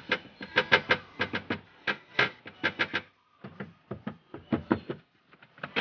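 Rear parcel-shelf board of a Proton Inspira (2008 Lancer) rattling against the car body as it is worked by hand, a fast run of clicks and clatters with a short break about three seconds in. The rattle is this board's vibration noise, kept lower by sponge already packed inside it.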